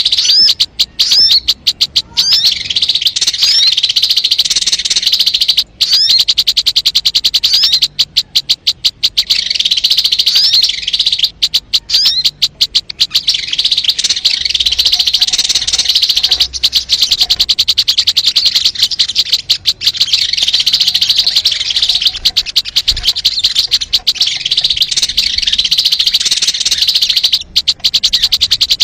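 Sogon bird song from a trapping lure recording: a fast, rattling chatter of rapid high notes that goes on with only short breaks, with a few upswept whistled notes near the start.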